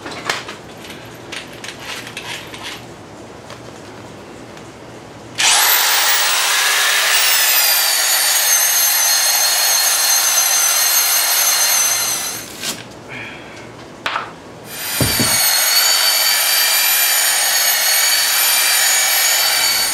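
Electric rotary polisher-sander sanding a cast iron skillet. A few light handling clicks come first. About five seconds in, the motor spins up with a rising whine, drops slightly in pitch and holds a steady high whine for about seven seconds. It stops, then starts again about two seconds later and runs on.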